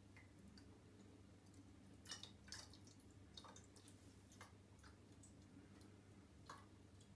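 Near silence with scattered faint drips of tap water falling into a glass volumetric flask from an upturned bottle. There is a small cluster about two seconds in and single drips later.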